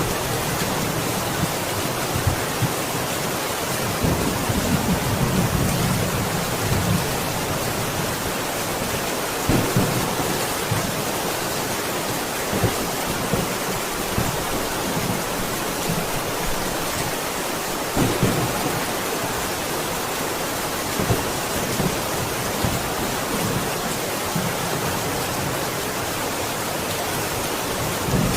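Steady heavy rain, with low rumbling thunder swelling in places and a few brief louder cracks.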